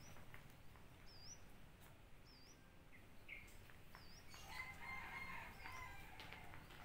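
Faint rooster crowing once in the middle, a drawn-out call of a second or two, while a small bird repeats a short rising-and-falling whistled chirp about once a second.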